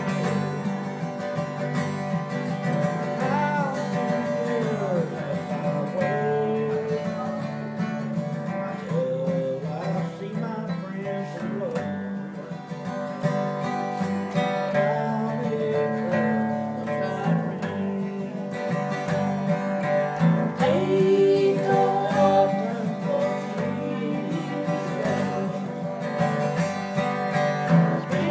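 Acoustic guitar played with a man singing along.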